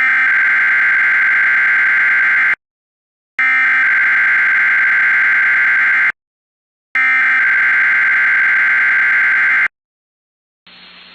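Emergency Alert System SAME header sent three times: three data-signal bursts of about two and a half seconds each, separated by short gaps, opening a NOAA Weather Radio required weekly test. Faint radio static hiss comes in near the end.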